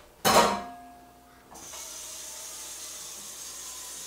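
A sharp metal clank with a short ringing tone just as it starts, typical of a metal pot or spoon being knocked. About a second and a half in, a steady hiss begins.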